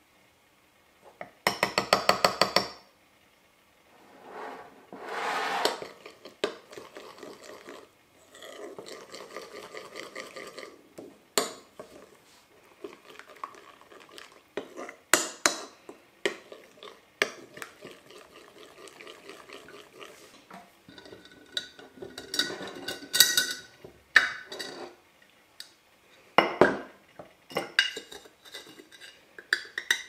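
Dishes and cutlery clinking and knocking as they are handled, with a quick rattle of rapid clicks about two seconds in and a short rush of noise a few seconds later.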